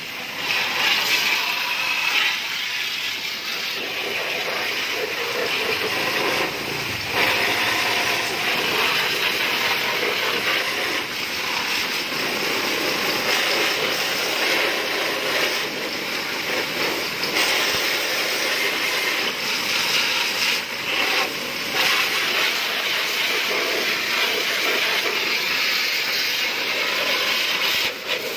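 Water jet from a hose spray nozzle hissing steadily as it hits a Honda motorbike's body and front wheel, with a brief break about seven seconds in.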